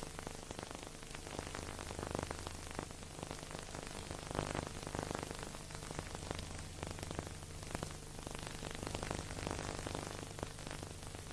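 Steady hiss and crackle with a low hum underneath, the background noise of an old film transfer, with no music or voices.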